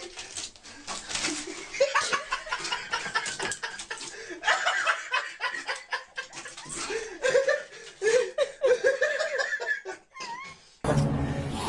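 A person laughing and giggling in short repeated bursts, with scattered knocks and scrapes as a cat scrambles in a bathtub.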